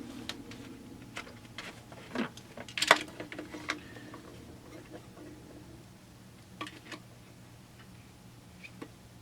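Handling noises of greased rubber chainsaw fuel line being worked through the fuel-line hole in a Husqvarna chainsaw's crankcase: scattered clicks and short rubs, the loudest about three seconds in, a few fainter ones later.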